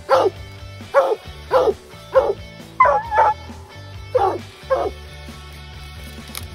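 Coonhounds barking in short, sharp barks about one a second, one bark drawn out and wavering near the middle, then falling silent about five seconds in.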